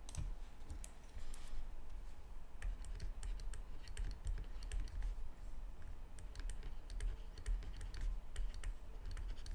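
Light, irregular clicks and taps of a stylus writing numbers on a tablet screen, over a low steady hum.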